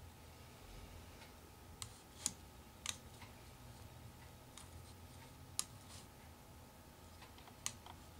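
A thin metal stirring utensil clicking against thin plastic cups as cherry tomatoes in water are stirred: a handful of sharp, irregular taps over a faint steady hum.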